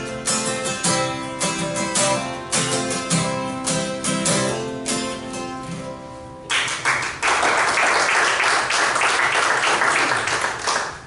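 Solo guitar playing the closing picked and strummed notes of a song. About six and a half seconds in, the audience breaks into applause, which fades near the end.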